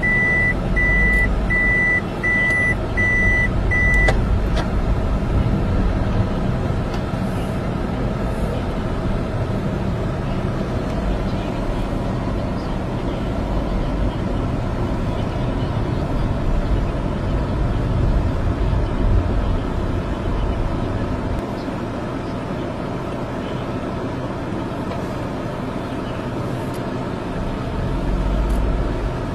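A motor vehicle engine running steadily at idle with a low rumble. For the first four seconds a high electronic beep repeats about twice a second, like a vehicle's reversing alarm, then stops.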